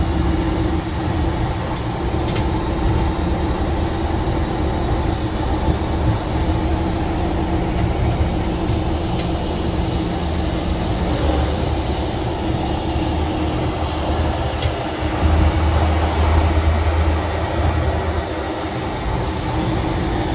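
Pickup truck road noise heard from inside the cab at about 50 mph: a steady low rumble of tyres and drivetrain with a constant hum. A few light knocks and rattles come from the fifth-wheel adapter and hitch loose in the bed.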